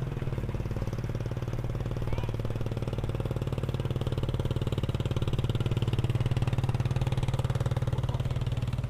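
Small engine running steadily: an even low hum with rapid, regular firing pulses, getting a little louder in the middle and easing off again.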